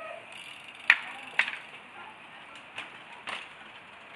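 Mountain bikes rolling along a path with rattling, and three sharp knocks at about one second, a second and a half and three seconds in.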